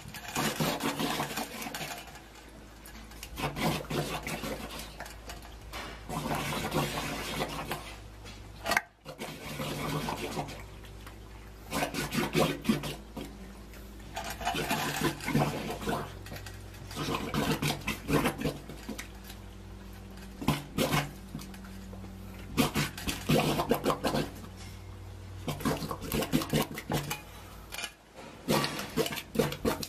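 Water gushing and sloshing in irregular bursts over a steady low machine hum, with a brief break about nine seconds in.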